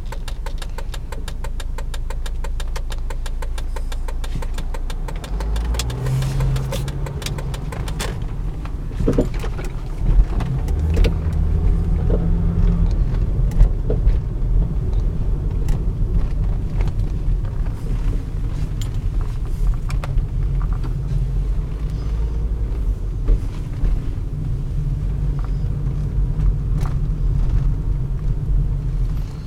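Volvo S60 moving off and driving, with a low engine and road rumble and scattered sharp knocks: the knocking sound the car makes when driving. A fast, even ticking runs through the first few seconds.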